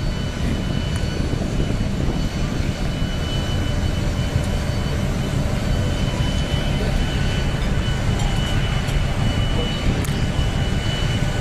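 Steady low rumble with a faint, steady high whine: the running noise of a ship at sea, heard on its open deck.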